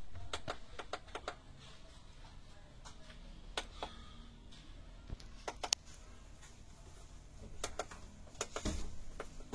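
Scattered light clicks and taps at an irregular pace, a few close together near the middle and again near the end, over a faint low hum.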